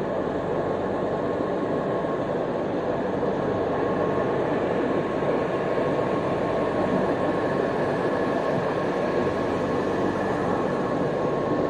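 EPE foam sheet extrusion line running: a steady machinery drone with a thin, constant whine.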